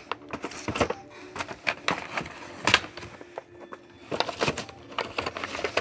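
Firework packages being handled and put back into a box: irregular knocks, clicks and rustling.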